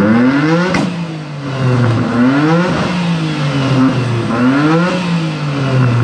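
Nissan Skyline R33's straight-six engine being revved hard through its exhaust while the car stands still, the pitch climbing and dropping about four times. There is a sharp crack at the top of the first rev.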